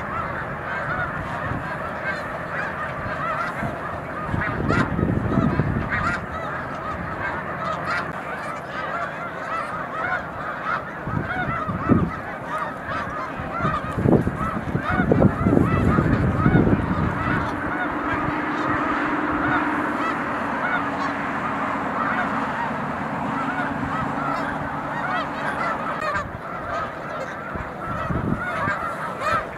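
A huge flock of snow geese calling all at once: a dense, unbroken chorus of overlapping honks. A few louder low rushes of noise rise through it in the first half.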